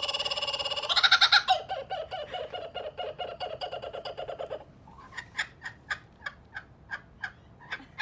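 Kookaburra giving its laughing territorial call: loud, rapid cackling about a second in that runs on fast and even, then tails off into spaced single notes over the last few seconds.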